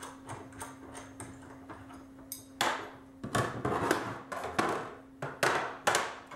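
Copper bus bar and fuse-block parts being handled on a table: light ticks at first, then from about two and a half seconds in a series of sharp metallic knocks and clinks as the pieces are set down and shifted.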